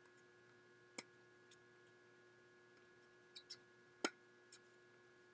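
Near silence with a faint steady hum, broken by a few sharp taps, the loudest about four seconds in. The taps fit a tennis ball being bounced on the hard court before a serve.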